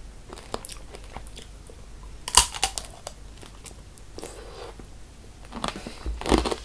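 Chewing and crunching of tanghulu: the hard sugar shell on candied strawberries cracking between the teeth, with a sharp crunch about two and a half seconds in and a run of louder crunches near the end.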